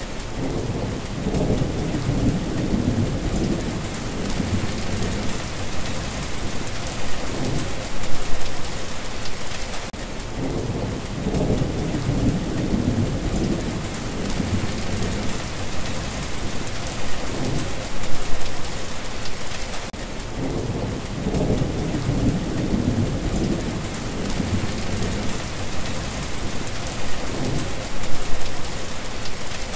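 Steady heavy rain with low rolling thunder that swells and fades, the same pattern coming round about every ten seconds.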